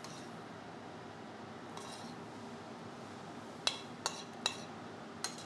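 Metal spoon against a stainless-steel pan while spooning cooked bacon mixture onto oysters: a faint scrape about two seconds in, then four sharp ringing clinks over the last two seconds.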